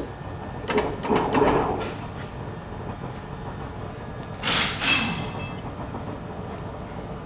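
Steel shaft being worked in the bore of a machined bronze rod eye, metal on metal. A cluster of clicks and scrapes comes about a second in, then two louder metallic scrapes with a ringing edge around four and a half seconds in, over a steady workshop hum.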